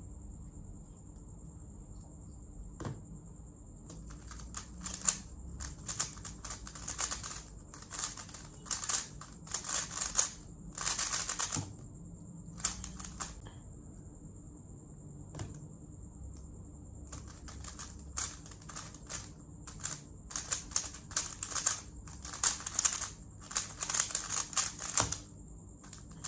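Speedcube being turned fast during timed solves: a rapid clatter of plastic layers in two runs of about nine seconds each, with a pause of a few seconds between them.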